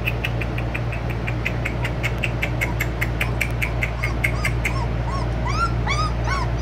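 Young American Bully puppies whimpering: a rapid run of short, high squeaks, about five or six a second, then rising-and-falling whines in the last couple of seconds.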